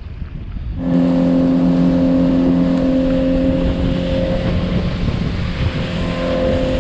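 Boat engine running at a steady high speed with the boat under way, under a loud rush of wind and water. It starts suddenly about a second in.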